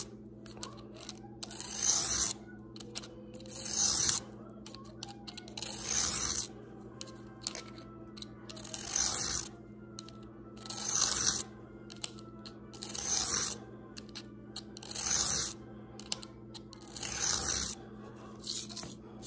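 Steel broadhead blade drawn across a sharpening stone under light pressure, a scraping hiss about every two seconds in even strokes.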